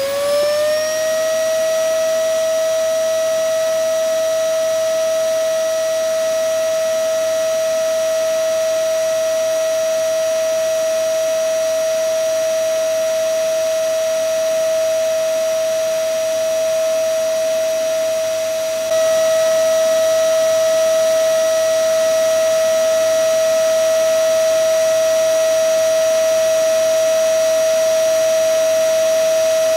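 Vacuum cleaner motor finishing its spin-up with a rising whine, then running at full speed: a steady high whine over a rushing hiss. About two-thirds of the way through it steps slightly louder.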